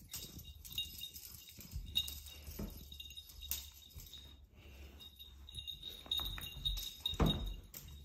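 A small bell jingling on and off as a tabby cat plays with her toy, with a few soft thumps of the cat moving on the rug, the loudest near the end.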